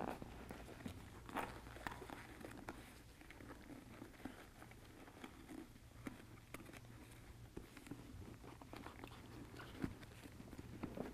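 Faint handling sounds of helmet parts being refitted: soft rustling of foam and fabric liner pieces with scattered small plastic clicks, over a low steady hum.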